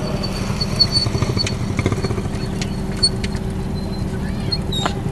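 Motorboat engine running steadily, a low even drone with a thin high whine over it and a few light clicks.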